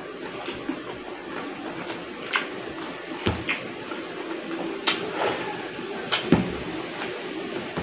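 Close-up mouth sounds of a person eating with his hands: chewing and wet lip smacks, with a handful of sharp smacks spread through, over a low steady hum.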